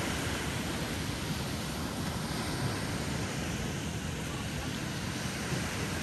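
Gentle ocean waves breaking and washing up on a sandy beach: a steady surf wash with no single loud break.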